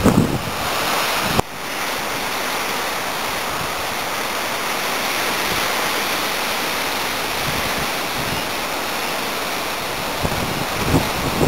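Rough sea surf on the coast in strong wind: a steady rush of breaking waves. Wind buffets the microphone for the first second and a half, then the sound changes abruptly to the even rush of surf, and a few gusts hit the microphone again near the end.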